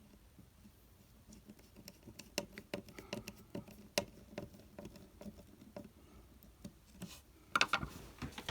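Irregular small clicks and taps of a screw and the walkie-talkie's plastic case parts being handled and lined up, with a quick run of louder clicks near the end.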